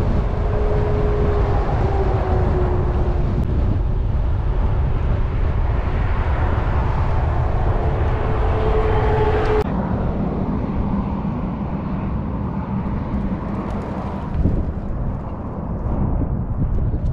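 Wind rumbling on the microphone and road noise from a bicycle riding along a highway, with a faint steady hum that comes and goes. The sound changes abruptly about ten seconds in.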